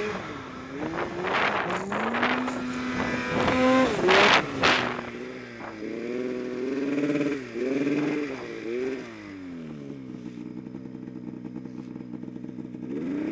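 Turbocharged Polaris Pro-RMK two-stroke snowmobile engine revving up and down repeatedly while riding deep powder, with several short rushes of noise in the first five seconds. For the last few seconds it settles to a steadier, lower running note.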